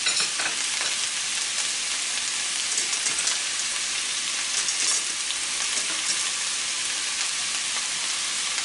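Red onion, chickpeas and potato pieces sizzling steadily in olive oil in a wok over a high gas flame, with a few brief louder crackles.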